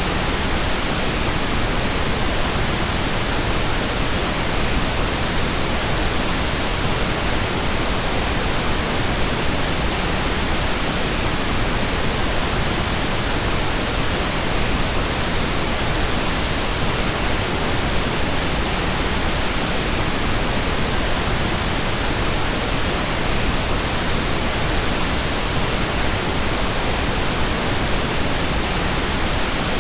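Steady, unchanging pink noise: an even hiss across all pitches, fuller in the lows than white noise.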